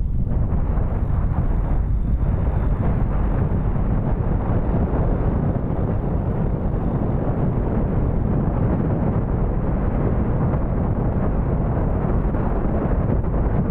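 Steady wind buffeting and road rumble heard from a moving motorcycle, a loud, unbroken noise with no pauses.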